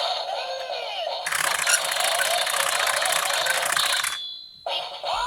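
Sentai toy changer playing its special-attack sound effects through its small built-in speaker: a dense, noisy run of electronic effects with sweeping tones. It cuts out for about half a second near the end, then starts a new sweep.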